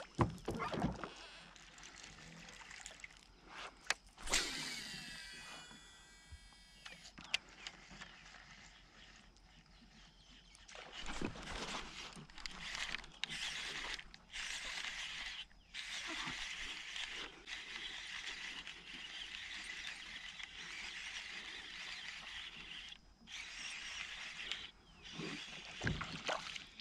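Baitcasting reel: a cast about four seconds in, with a whirring whine from the spool that slides in pitch as line pays out, then steady cranking of the retrieve from about eleven seconds on, broken by a few short pauses.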